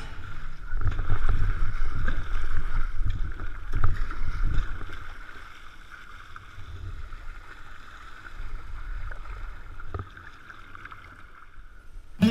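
Sea kayak under way in choppy water: water washing along the hull and paddle blades splashing, over a low rumble of wind on the deck-mounted microphone. The rumble is heavier in the first few seconds.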